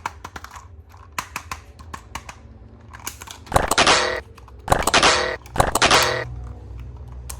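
Plastic toy pieces and packaging being handled: a run of sharp clicks and taps, with three louder crackling bursts a little past the middle.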